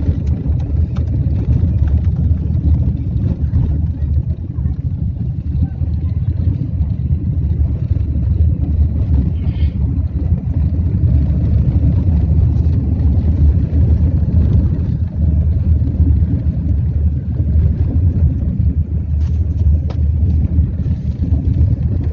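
Steady deep rumble of a moving vehicle on the road, with road and wind noise on the microphone.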